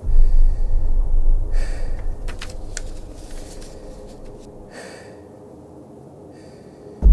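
A deep sub-bass rumble hits suddenly and fades away over about four seconds. Over it come several short hissing breaths through a gas mask respirator and a few crisp clicks and rustles of a paper journal's pages being handled.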